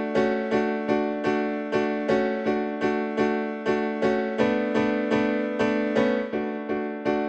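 Background music: an electric piano playing a steady run of evenly spaced notes, about two and a half a second, over a held low note.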